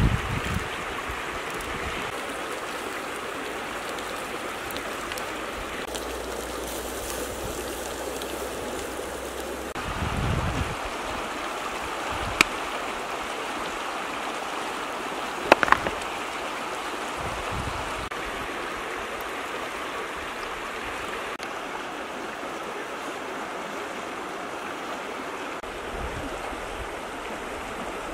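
River water flowing steadily over stones, with a few sharp clicks around the middle.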